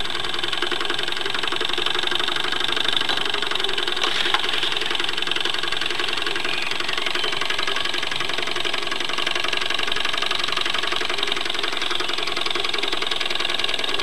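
Wilesco D10 toy steam engine running fast: a rapid, steady chuffing and rattling with a steady hiss, with no organ tune playing.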